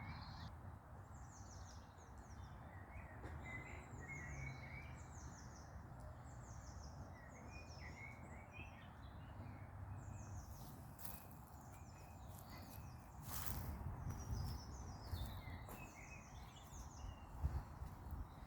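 Wild birds singing: many short, high notes that sweep downward, repeated over and over, with lower chirps between them, over a steady low rumble. A few brief clicks come in the middle.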